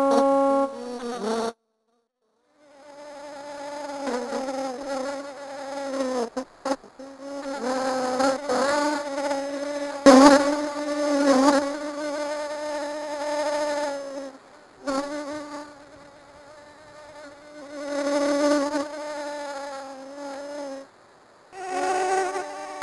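Flying-insect buzz sound effect, wavering in pitch and swelling and fading as it circles and comes and goes, with a couple of sharp taps about six seconds in. Music with held brass-like tones plays at the start, breaks off into silence, and returns near the end.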